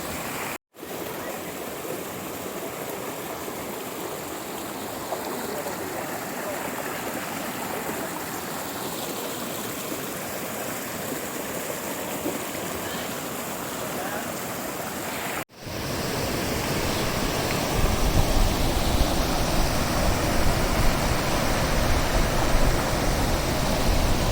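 Steady rushing water of a hill stream. It cuts out completely twice, briefly, about a second in and about fifteen seconds in. After the second break it comes back louder, with a deep rumble added.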